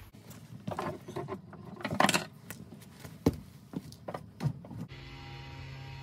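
Scattered knocks and clatter from someone moving about off-camera, then, about five seconds in, a steady electrical mains hum starts suddenly as power is switched on to the newly hardwired surge protector.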